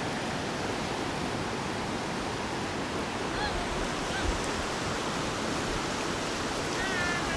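Steady rushing of a fast-flowing river, an even wash of water noise with no break.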